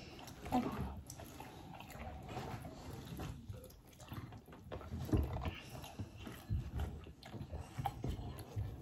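People eating roast chicken by hand, close to the microphone: chewing, biting and smacking, with irregular small knocks.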